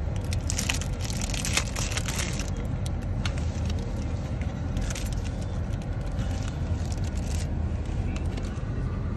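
Cellophane wrapper crinkling and crackling as it is peeled off a new cassette tape's plastic case, with small clicks of the case, densest in the first few seconds. A low steady rumble from the car runs underneath.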